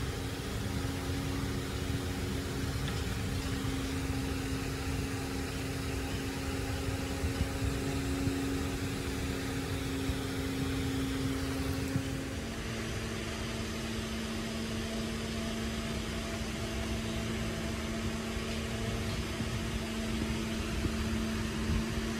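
Workshop machinery running steadily with a constant hum. Its pitch steps slightly lower about halfway through and then holds.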